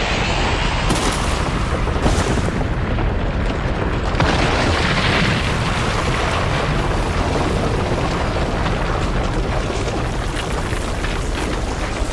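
Animation sound effects of a massive crash: a continuous heavy rumble with booming hits about one, two and four seconds in, as a giant body slams down into water and throws up dust.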